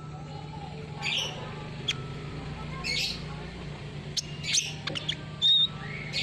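Sunbird (kolibri ninja) giving short, sharp chirps and squeaky calls at irregular intervals, with one brief clear whistled note, over a steady low hum.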